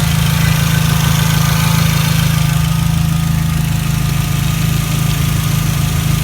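Car engine idling steadily with no belt squeal, its accessory drive belt freshly tightened after running loose.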